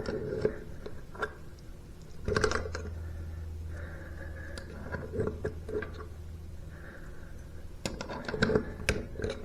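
Metal long-nose pliers clicking and tapping against a pop-up sink drain in irregular clusters while pulling a clog of hair and gunk out of it.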